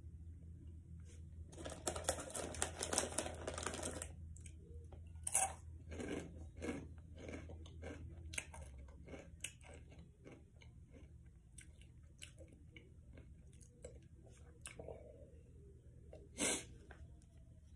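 Crunchy snack chips being chewed close to the microphone, in irregular crunches. A denser, louder stretch of crunching comes about two seconds in, and a short sharp noise near the end.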